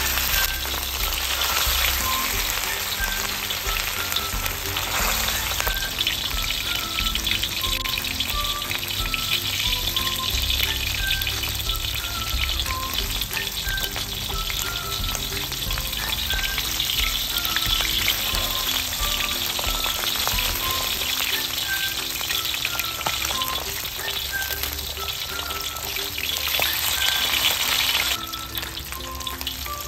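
Small cornflour- and rice-flour-coated fish deep-frying in hot oil in a wok: a steady sizzle, with soft background music underneath.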